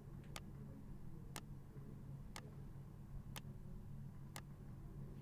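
Clock ticking evenly once a second, five ticks, over a faint low steady hum.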